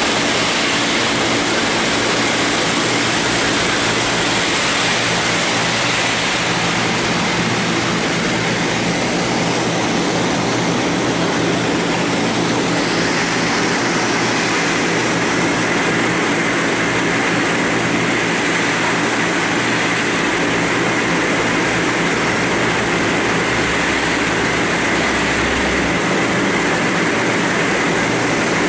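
Höfler Rapid 800 gear grinding machine grinding the teeth of a gear shaft: a loud, steady grinding hiss over a constant machine hum, with a higher tone coming in about halfway through.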